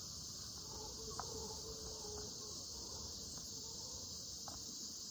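A steady, high-pitched insect chorus, such as crickets, heard faintly as background.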